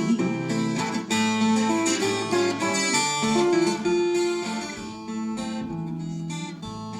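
Acoustic guitar playing an instrumental interlude between sung verses of a slow waltz-time romance, with plucked and strummed notes. It grows quieter a little past the middle.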